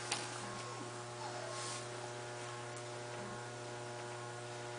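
Steady electrical hum with a few faint, brief rustles.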